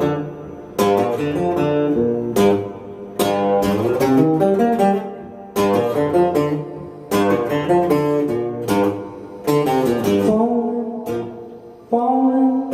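Acoustic guitar strumming chords in the instrumental passage of a song, each strummed chord ringing out and fading before the next.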